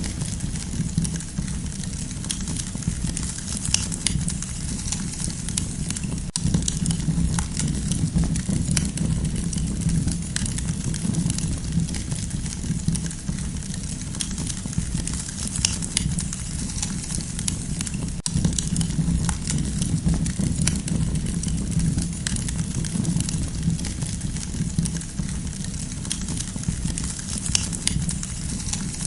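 Wood campfire burning with frequent sharp crackles and pops over a steady low rush of flame.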